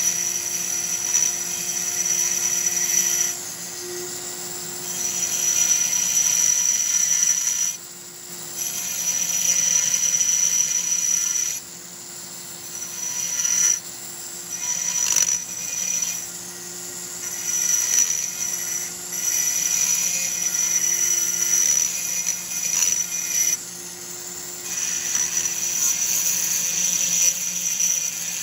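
High-speed rotary tool with a burr grinding aluminium from the transfer ports of a Homelite Super XL-130 chainsaw cylinder, to port it. A high whine comes and goes in passes of a few seconds as the burr is worked in and eased off.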